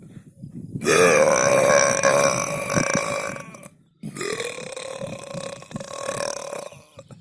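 Two long, drawn-out human burps, one straight after the other, each lasting about three seconds; the first is the louder.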